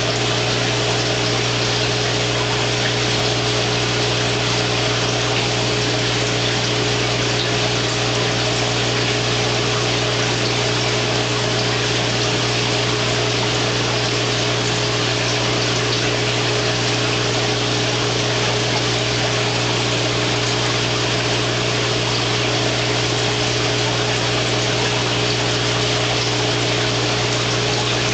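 Steady hiss of air bubbling through aquarium water from an air-driven sponge filter, with a constant low hum underneath.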